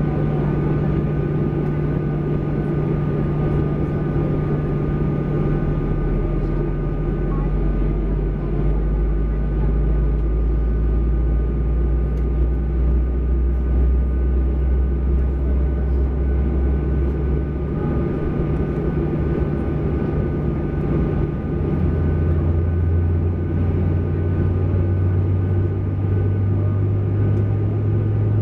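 Steady cabin hum inside a Boeing 737-800 during pushback. A low drone comes in about five seconds in and stops near eighteen seconds; a slightly higher drone starts about three seconds later and holds.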